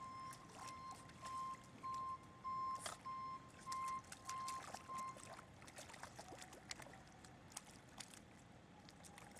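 Vehicle reversing alarm beeping evenly, about one and a half beeps a second, stopping about five seconds in. Under it, faint wet splashes and squelches of a dog digging and biting at a mud puddle.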